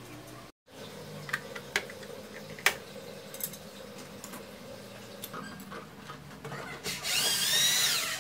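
A corded electric drill runs for about a second near the end, its motor whine rising and then falling away. Before it come a few light knocks.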